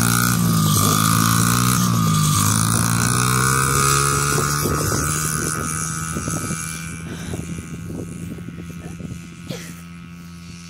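Small kick-start dirt bike's engine revving up and down as it pulls away, then running steadily while it fades off into the distance over the second half.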